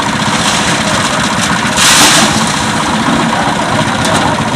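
A heavy engine running steadily, with a brief noisy rush about two seconds in.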